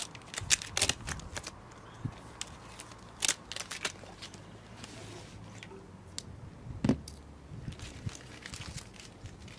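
Clicks, taps and rustles of a small 12 V booster pump and its plastic hoses being handled, with one louder knock about seven seconds in as the pump is set down on a brick wall.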